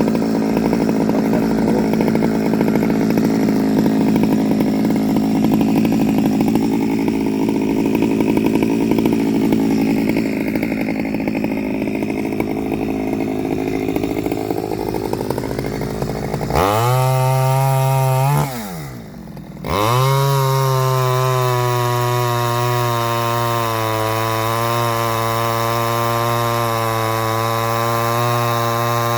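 Stihl 009L two-stroke chainsaw on its standard carburettor cutting through wood under load for about sixteen seconds. It then revs up freely to high speed, drops back briefly, and is revved up again and held at high revs.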